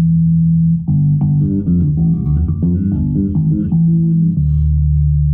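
Six-string electric bass played loud through an Ampeg bass cabinet: a held low note, then a quick phrase of plucked notes from about a second in, settling on another held low note near the end, as its active mid EQ is being tried out.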